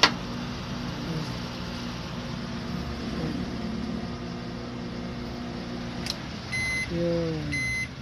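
Microwave oven running with a steady hum, which cuts off with a click about six seconds in as the timer runs out, followed by two high beeps signalling the end of the cycle. A sharp click at the very start.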